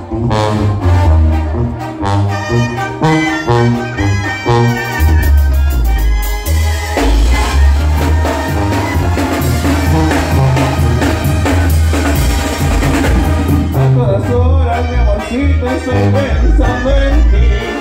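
Live Mexican banda music: a brass band with trumpets, tuba and tambora bass drum with cymbals playing a dance tune, the tuba carrying a steady line of bass notes under the horns.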